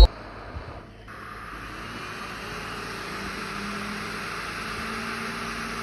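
Hot-air rework station blowing: a steady airy hiss with a faint hum, building up over the first two seconds.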